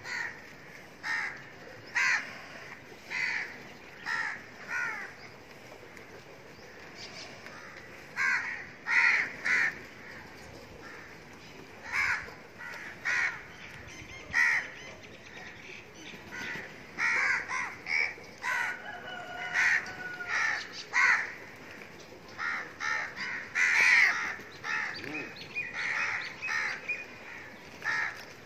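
A flock of crows cawing: many short, harsh calls coming singly and in quick clusters, with a lull of a few seconds about five seconds in.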